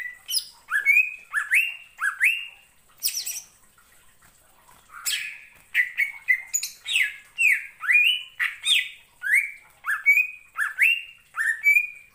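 Male green leafbird (cucak ijo) singing: a lively run of loud up-slurred whistled notes, about two a second, mixed with a few harsh scratchy calls, with a brief pause about four seconds in.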